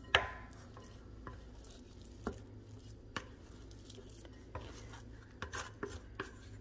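Plastic rice paddle stirring sticky bread dough in a glass mixing bowl, with scattered light knocks and scrapes as the paddle hits the glass; the loudest knock comes just at the start, with a short ring.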